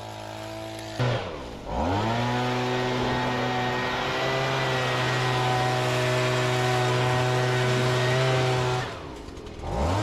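Case IH combine running while harvesting corn, a steady mechanical drone at an even pitch. Its pitch swoops down and back up about a second in and again near the end.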